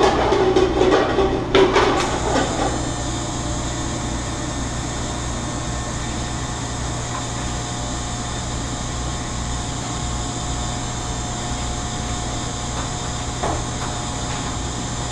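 Steady hum of commercial kitchen ventilation and equipment, with several steady whining tones in it. Knocks and clatter are heard in the first two seconds.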